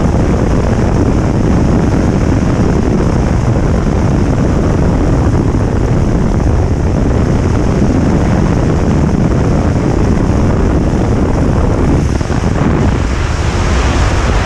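Heavy wind on the microphone and rushing water from a bass boat running at about 100 mph, with its Mercury 400R outboard at full throttle underneath. The noise is loud and steady, then turns more ragged about twelve seconds in.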